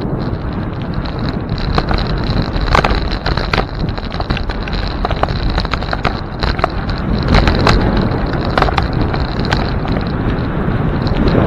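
Wind on the microphone and road rumble while riding a bicycle, with scattered sharp clicks and rattles and a thin steady high whine underneath.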